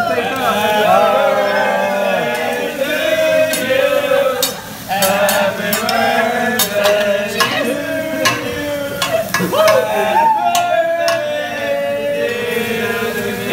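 Several voices singing a birthday song together over the sizzle of a hibachi griddle, with sharp clacks scattered through it.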